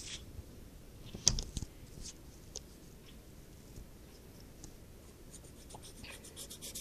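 Pencil scratching faintly on paper as a line is drawn, with a quick run of short scratchy strokes near the end. A single sharp knock about a second in is the loudest sound.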